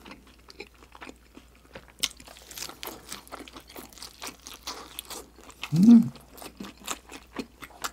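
Close-miked chewing of a shrimp mandu dumpling: soft wet smacks and clicks of the mouth working the food. About two-thirds through there is a short hummed "mmm" with the lips closed.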